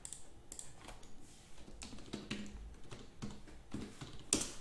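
Typing on a computer keyboard: an irregular run of key clicks, the loudest near the end.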